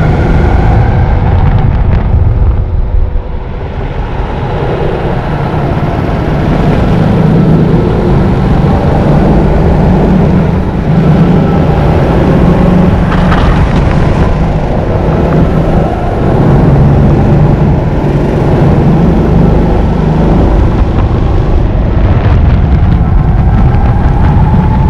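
Go-kart engine heard from on board, running hard at high revs. The revs and loudness drop a couple of seconds in as it lifts off for a bend, then build again, with the engine note climbing steadily near the end as it accelerates.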